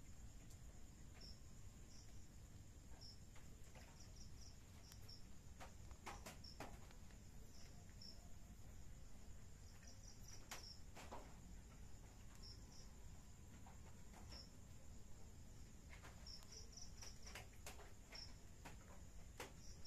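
Faint cricket chirps, some single and some in quick runs of three or four, over a steady high-pitched hiss, with a few soft clicks.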